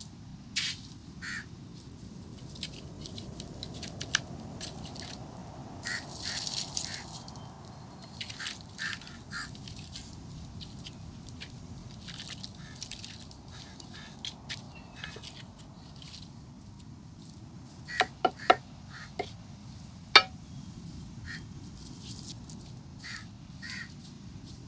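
Wooden spoon stirring and scraping crab curry in a wide metal pan on a wood-fired clay stove, with scattered clicks and knocks. A few sharper knocks come about 18 to 20 seconds in.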